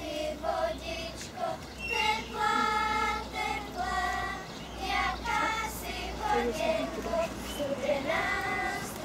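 A group of young girls singing a traditional folk song together, each note held for about half a second.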